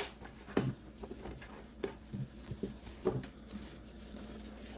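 Soft rustling and brushing of a crocheted cotton panel and linen fabric being folded and moved by hand, with a few short, light handling sounds.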